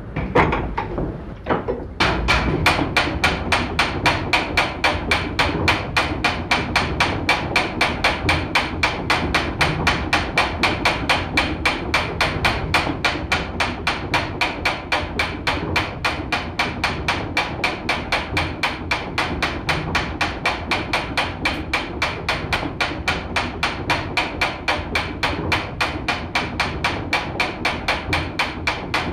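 Tower clock gearwork clicking in a steady, fast beat of about three sharp metallic clicks a second, each with a brief ring; the clicking starts abruptly about two seconds in, after a few scattered knocks and one sharp thump.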